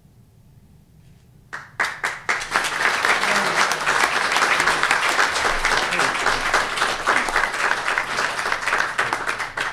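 A roomful of people applauding: a few first claps about a second and a half in, then steady clapping that begins to taper off near the end.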